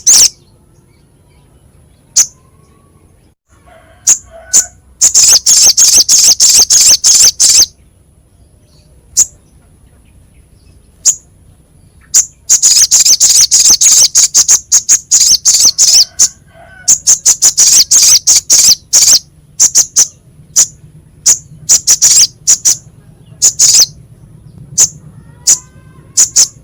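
Sogok ontong (crimson sunbird) singing in a harsh, sharp voice: fast high-pitched trills of rapid chip notes in bursts of a few seconds, with single sharp notes between them.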